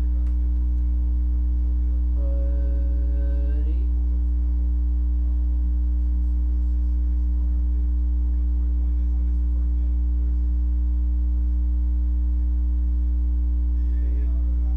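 Steady electrical mains hum, a low buzz with a ladder of higher overtones, unchanged throughout. A short pitched sound lasting under two seconds rises above it about two seconds in.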